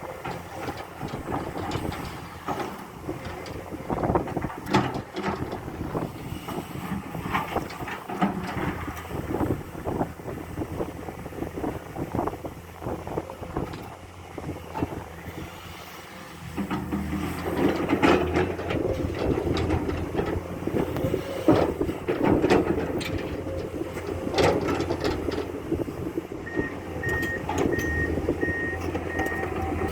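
Komatsu excavator's diesel engine running under work, with repeated knocks and clanks throughout; about halfway through the engine gets louder and holds steady. Near the end its warning alarm sounds a regular series of beeps.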